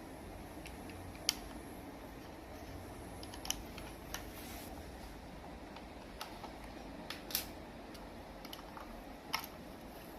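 Faint, irregular clicks and taps of plastic Lego pieces as the Lego keys are handled and tried in the safe's lock, over a steady low hum.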